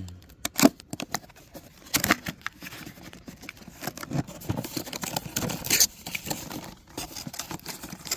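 Packaging being opened and handled: irregular rustling and tearing with scattered clicks and knocks, the sharpest knock about half a second in.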